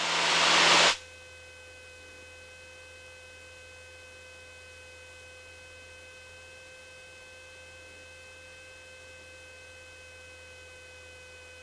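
A rush of open-mic cockpit noise cuts off abruptly about a second in. It leaves a faint, steady electrical hum with a thin, high whine from the headset intercom audio feed. The plane's engine is not heard directly.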